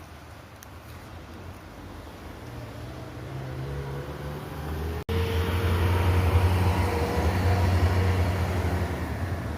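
A low, steady engine rumble that grows louder, breaks off for an instant about five seconds in, then carries on louder.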